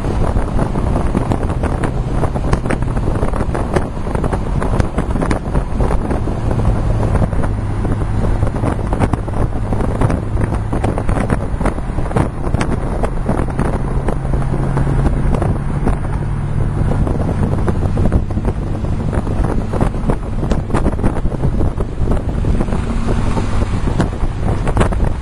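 Car running steadily at highway cruising speed, a low engine drone under heavy wind noise on the microphone and road noise, heard from inside the moving car.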